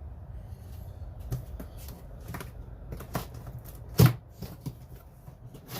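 Cardboard box and packaging being opened and handled: irregular clicks, scrapes and knocks, with one loud knock about four seconds in.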